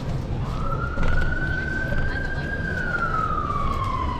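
Emergency vehicle siren wailing: a single tone that starts about half a second in, climbs slowly, then sinks in pitch toward the end, over steady low street noise.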